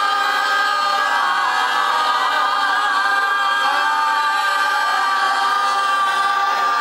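A group of people holding one long, drawn-out shout of "yaaam" together: the held first part of a "yam seng" toast, with voices at several pitches sustained without a break.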